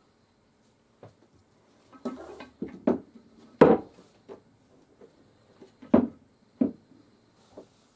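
A string of knocks and clunks as an office chair's five-star base is turned over and handled on a wooden workbench top, with lighter handling noise between; the two loudest knocks come a little before halfway and about six seconds in.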